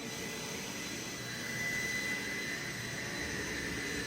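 Steady mechanical whir with a thin high whine, running evenly and getting slightly louder about a second in.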